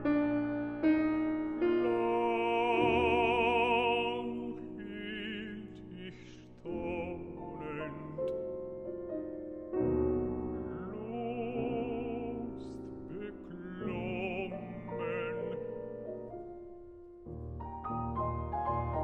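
Baritone singing a classical art song with a wide vibrato, accompanied by piano chords; near the end the voice stops and the piano plays on alone.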